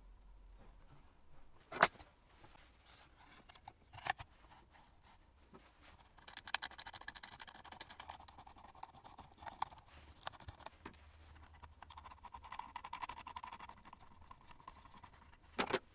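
Plywood jig parts handled and fitted together by hand: a sharp knock about two seconds in, another near the end, and a stretch of faint scraping and rubbing in between as the plate is slid and set in place.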